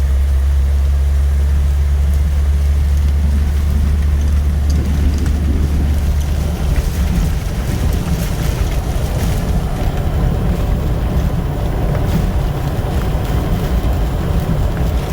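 Jeep running, heard from inside the cabin, with storm wind and rain buffeting the vehicle. A deep rumble dominates at first and eases about six seconds in, leaving a steady rushing noise with scattered light ticks.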